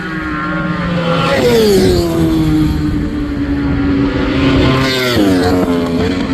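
Racing motorcycle engine running at high revs, its pitch falling about a second and a half in, then rising and dropping again near the end, as a bike goes by on track.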